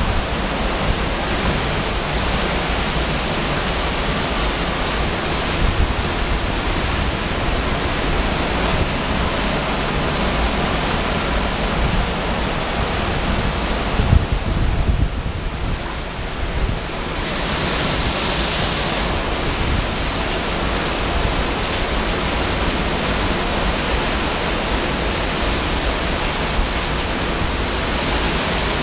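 Tropical-storm-force hurricane winds with driving rain, a loud, steady rush of noise with wind buffeting the microphone. A stronger gust comes about fourteen seconds in, after which the hiss briefly thins before building back.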